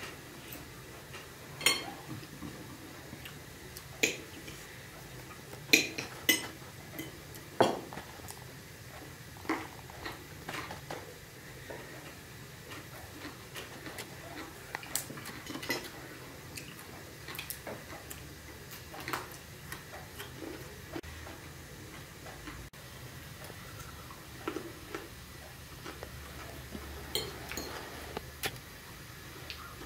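Metal forks clinking and scraping on china plates as a meal is eaten: scattered light taps and clinks, a few louder ones in the first eight seconds.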